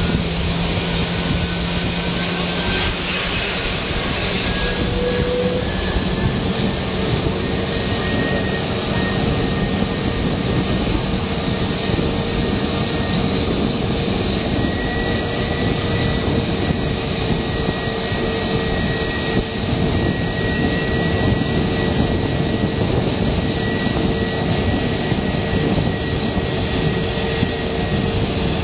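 Jet aircraft engines running, a steady rush with a faint high whine that rises slightly a few seconds in.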